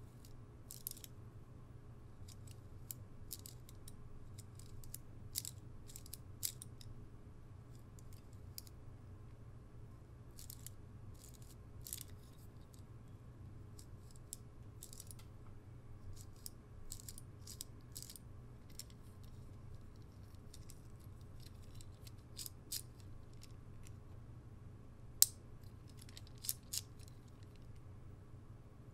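Scattered small clicks and light rattles of a miniature Glock pistol model's slide and parts as they are handled, taken apart and fitted back together, with one sharper snap near the end. A low steady hum runs underneath.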